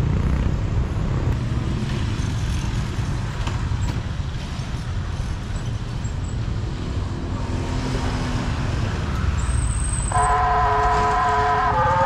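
Road traffic running past a railway level crossing, a steady low rumble of engines and tyres. About ten seconds in, the crossing's electronic warning siren starts loudly: a held, several-toned wail that shifts pitch a little. Its tone has sagged lower and sounds comically off, a worsening fault in the siren.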